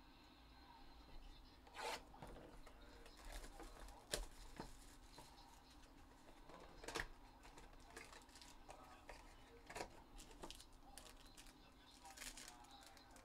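Faint handling noise of a trading-card hobby box and a foil card pack: soft rustling with a few short, sharp crinkles or clicks spaced a couple of seconds apart.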